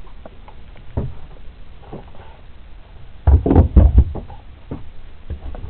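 Wooden galley lids on a small yacht being handled: a single knock about a second in, then a run of heavy knocks and thuds between three and four seconds in, with a couple of lighter knocks after.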